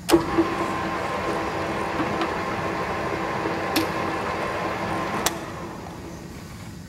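Sheldon metal lathe running under power, its gearing and feed train giving a steady mechanical hum with a whine. Sharp clicks from the carriage controls come at the start, near four seconds and a little after five seconds in. After the last click the sound drops to a quieter run.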